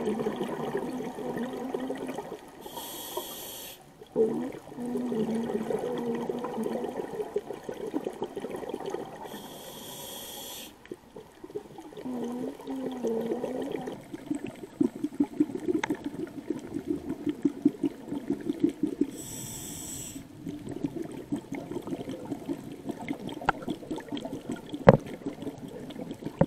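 Scuba diver breathing through a regulator underwater: three short, high inhalation hisses, each followed by a long, rumbling exhalation of bubbles. A single sharp click near the end.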